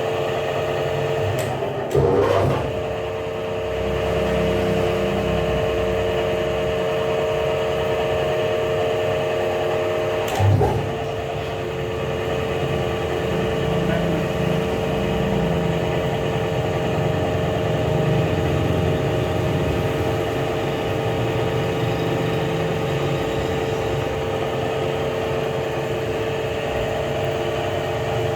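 Pipe rolling machine running: a steady electric-motor hum over an uneven low rumble from the drive, with a clunk about two seconds in and another about ten seconds in.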